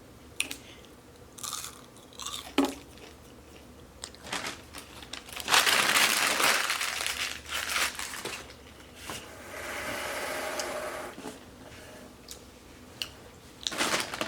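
Close-up crunching and crinkling, as of chewing fast food and handling its paper wrappers, with scattered sharp clicks. The loudest stretch is a dense burst of crinkling about five to eight seconds in, with a quieter one around ten seconds.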